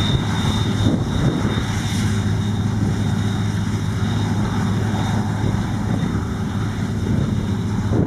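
New Holland CX-880 combine harvester running steadily while harvesting maize: a loud, even engine and machinery drone with a low hum.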